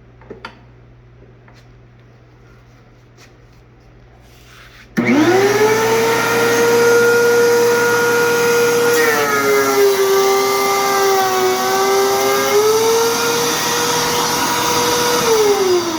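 DeWalt 13-inch thickness planer switched on after a few light clicks: the motor and cutterhead spin up almost at once to a loud, steady high whine. The pitch sags for about three seconds while a board feeds through and is cut, then recovers. Near the end the machine is switched off and the whine falls as it spins down.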